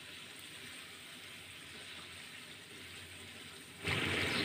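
Green mango pickle in oil, spices and vinegar bubbling and sizzling in a frying pan: faint at first, then much louder about four seconds in.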